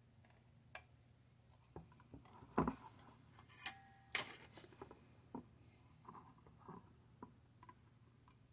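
Scattered light clicks and knocks of hands handling a printed circuit board and pressing a relay into it, the loudest few coming about two and a half to four seconds in.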